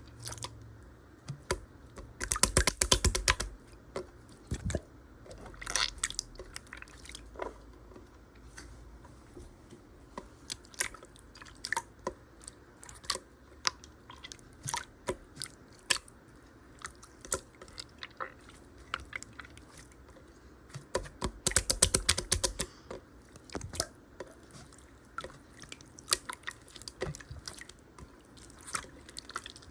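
Slime being squeezed and pressed by hand, giving scattered small clicks and pops, with two dense runs of crackling about two seconds in and about twenty-two seconds in.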